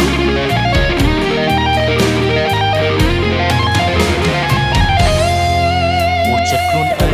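Khmer pop-rock song with an electric guitar over bass and drums, ending in a long held note with vibrato.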